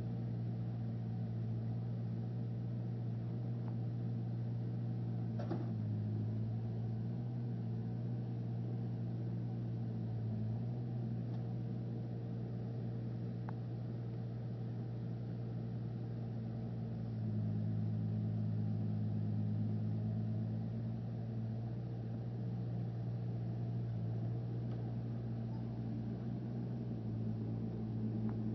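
Backhoe's diesel engine running steadily as the machine digs, a little louder for a few seconds past the middle.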